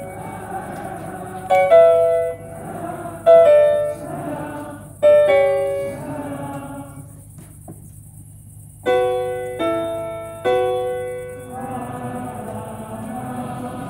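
Grand piano chords struck in short phrases, each ringing out, with a brief near-silent pause about eight seconds in. Between the phrases, and steadily near the end, a crowd of voices sings back.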